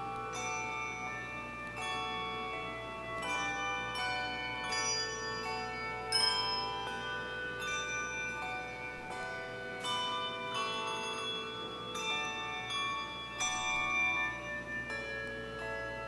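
Handbell choir ringing a piece: chords of handbells struck about once a second, their tones ringing on and overlapping.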